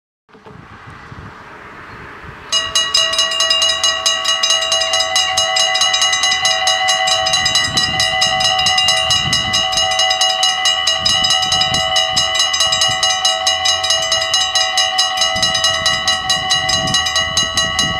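Dutch AHOB level crossing bells start about two and a half seconds in and ring loudly in rapid strikes, warning that a train is coming while the half-barriers lower.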